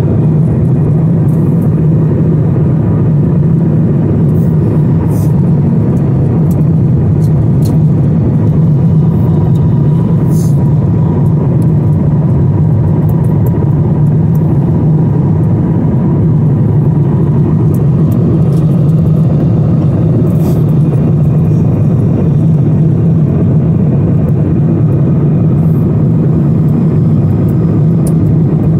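Steady cabin drone of an airliner at cruise: a loud, even low rumble of engine and airflow noise with a faint steady hum above it and a few faint ticks.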